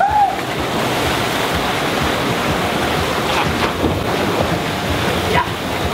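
Water rushing steadily through the splash-down run-out of a waterslide, with wind buffeting the microphone.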